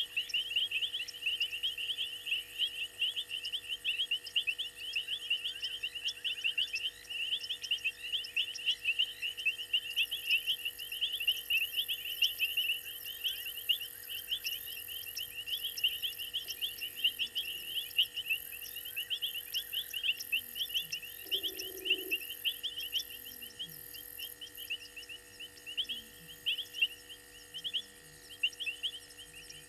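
Night chorus of insects and frogs at a waterhole: a dense, unbroken high chirping, joined from about a third of the way in until a little past the middle by a higher rhythmic pulsing.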